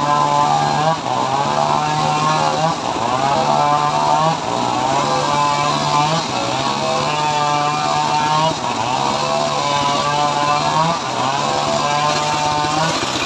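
Engine-driven homemade circular sawmill running while sawing a teak log, a loud steady mechanical drone. Its pitch dips and recovers every second or two as the blade takes the load of the cut.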